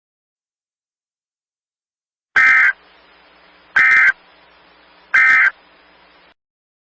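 Emergency Alert System end-of-message signal: three identical short bursts of digital data, about a second and a half apart, starting about two seconds in, with a faint hiss between them. They mark the end of the alert.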